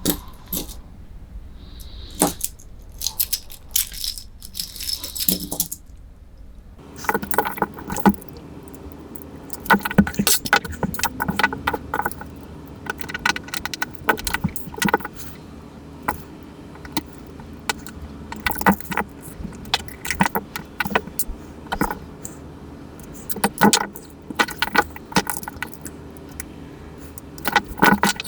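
Small metallic clicks, clinks and rattles of a Casio analog wristwatch being handled and taken apart. They are sparse for the first few seconds, then come thick and irregular from about seven seconds in.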